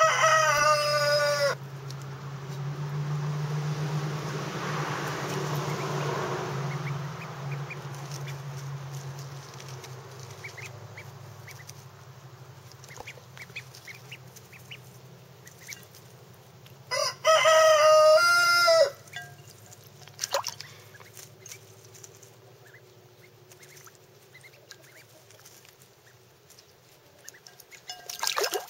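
A rooster crowing twice, each a pitched crow of about one and a half seconds: once right at the start and again about seventeen seconds in. Between the crows a low drone swells and fades, and a few faint ticks are heard.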